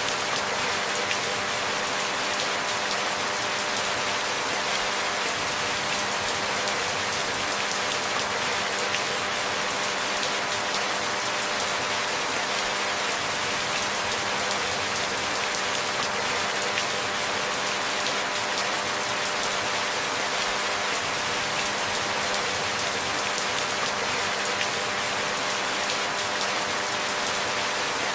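Steady rain falling, an even, unbroken hiss of dense raindrops, with a faint steady hum underneath.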